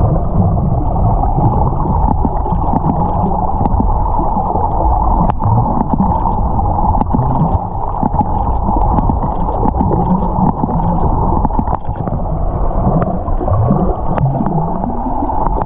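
Muffled, steady underwater rush with many faint dolphin clicks scattered through it, and a few sliding whistle-like tones near the end, recorded underwater beside a pod of wild dolphins.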